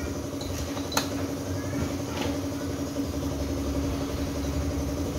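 Steady mechanical hum over a low rumble, with one sharp click about a second in.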